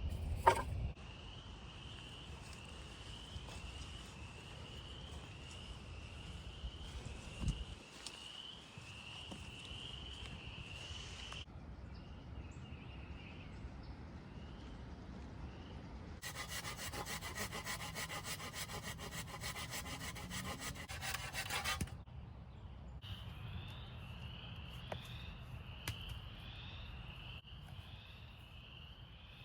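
Hand saw cutting through wood for about six seconds in the middle, a rasping stroke-by-stroke hiss. Before and after it there is a high, rhythmic chirping, about two rising chirps a second.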